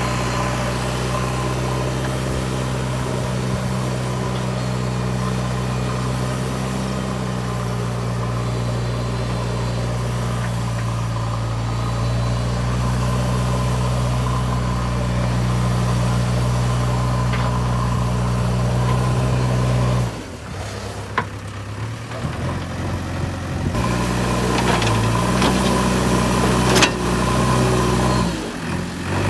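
JCB backhoe loader's diesel engine running at a steady speed. About two-thirds of the way through, the sound drops away suddenly for a few seconds, then the engine comes back with a few sharp knocks.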